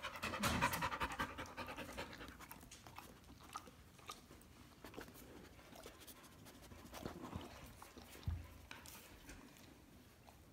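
A dog panting close to the microphone, quick and rhythmic, loudest in the first second or two and then fading, with scattered small clicks.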